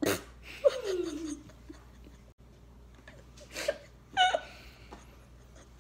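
Girls laughing: a drawn-out falling vocal 'ohh' about half a second in, then short high-pitched laughs about three and a half to four and a half seconds in.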